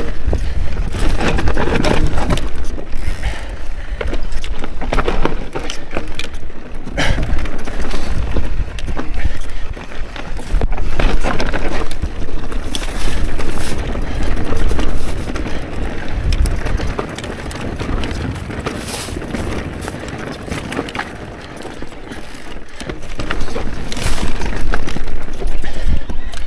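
Mondraker Crafty electric mountain bike ridden over rocky trail: irregular rattles and knocks from the chain and frame and tyres striking rock, over a steady rumble of wind on the action camera's microphone. It goes quieter for a few seconds after the middle, then picks up again.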